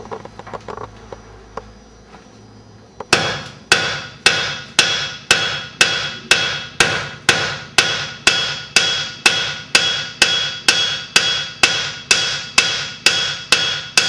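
Blacksmith's hand hammer striking red-hot iron on the back edge of an anvil. The blows start about three seconds in and keep an even pace of just under two a second, each with a bright ring from the anvil. The smith is thinning and flattening the metal for an arrowhead's socket, hitting half on and half off the anvil.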